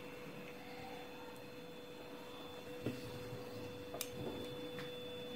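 Quiet room tone with a steady faint hum, and a few faint clicks about three, four and nearly five seconds in.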